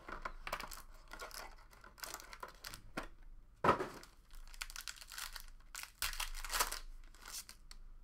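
Foil trading-card pack being torn open and crinkled, with the cardboard box handled alongside: a string of irregular rustles and rips, the loudest and sharpest a little under four seconds in.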